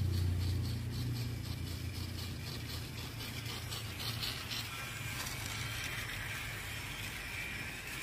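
Toy train running on plastic track: a steady low motor hum with a faint rattle from the wheels, easing slightly after the first couple of seconds.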